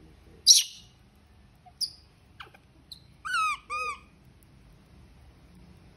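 Baby macaque calling: a short harsh burst about half a second in and a brief high chirp, then two quick high coos a moment apart, each dipping and rising again in pitch.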